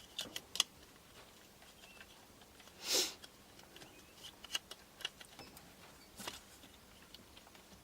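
Small plastic clicks and handling noises as a gimbal protector is slid onto a DJI Phantom 3 Professional drone, with one short breathy rush about three seconds in.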